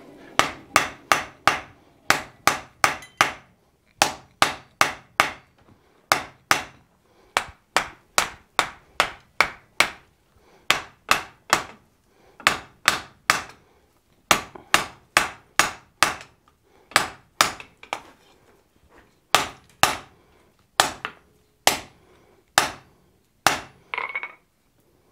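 Blacksmith's hand hammer striking a welding-hot bar of wrought iron and tool steel on the anvil, in quick runs of three to five blows about three a second with short pauses, the blows more spaced near the end. The hammering works the bar at welding heat to clean up the forge weld.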